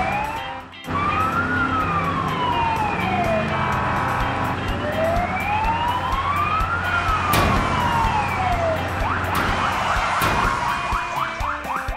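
Police car siren wailing in a slow rise and fall of pitch, two full cycles, over a steady vehicle engine drone. Near the end it breaks into quick, short sweeps.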